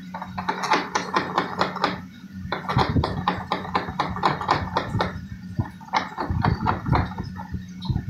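A wire being pushed and worked by hand into an LG refrigerator's blocked defrost drain pipe: rapid, irregular scraping and clicking as it forces through the jam of ice or debris, over a steady low hum.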